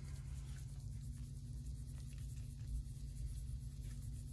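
Faint light scratching as grated Parmesan is shaken from a small bowl over a flatbread in a cast-iron pan, over a steady low hum.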